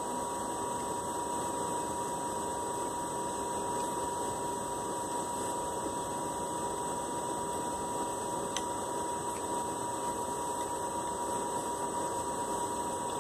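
Steady hiss with a steady whine under it, and a single sharp click about eight and a half seconds in.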